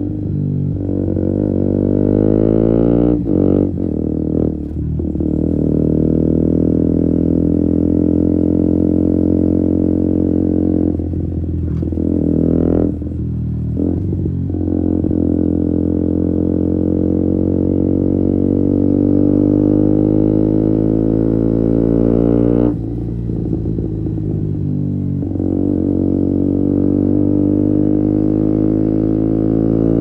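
KTM Duke 125's single-cylinder engine through an Akrapovic exhaust, accelerating in long pulls, its note climbing steadily in pitch. Each pull breaks off and the pitch falls back at a shift or throttle lift, about 3 to 5 seconds in, around 11 to 14 seconds, and again about 23 to 25 seconds in.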